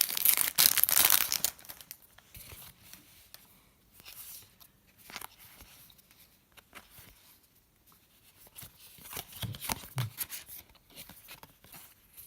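A trading-card pack wrapper being torn open and crinkled, loud for about the first second and a half, then quiet rustling and light clicks of cards being handled and sorted.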